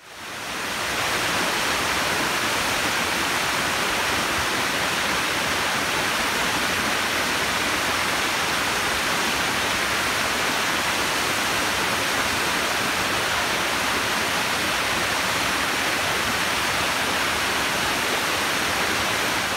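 Munising Falls and its rocky creek: a steady rush of falling and tumbling water that fades in over the first second and fades out at the end.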